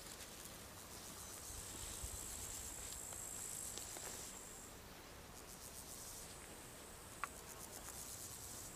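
Summer meadow insects, crickets, with a steady high-pitched trill that fades about halfway through, then rapid pulsed chirping. A single short, sharp high chirp comes near the end.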